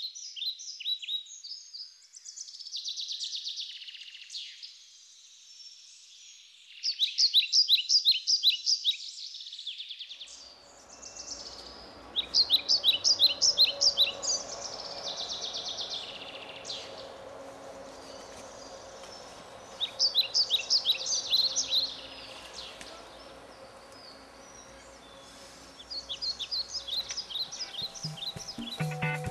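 Forest ambience: high chirping calls in rapid trills that come in bursts of a couple of seconds, several times over, with a faint steady hiss and hum coming in about a third of the way through.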